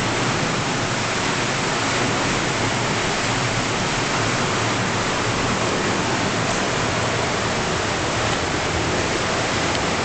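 Sewage overflow rushing through a brick sewer interceptor, heard up close: a steady, loud rush of water like about a million toilets flushing at once.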